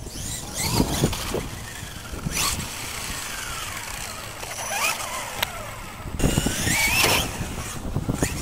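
Brushless electric RC monster truck (Traxxas E-Revo) driving past, its motor whining and sliding up and down in pitch as the throttle changes, with a few short knocks, loudest about six to seven seconds in.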